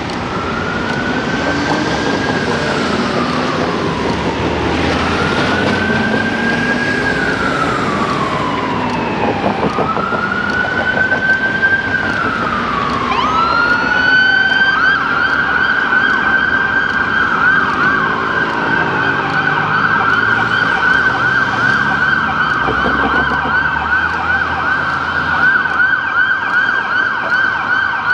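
Ambulance siren sounding a slow wail, rising and falling about every four to five seconds for three cycles. About fourteen seconds in it switches to a fast yelp that keeps going, over the rumble of city traffic.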